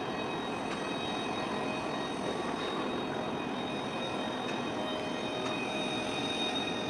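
Steady rumble and hum of a large container ship under way, passing close by, with a few high, steady whining tones over it.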